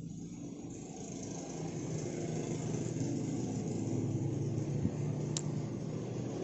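A motor vehicle engine running steadily, growing louder over the first few seconds. A single sharp click about five seconds in.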